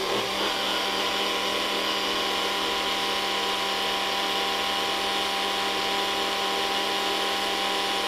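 NutriBullet personal blender running steadily, its motor blending almond milk with a green powder.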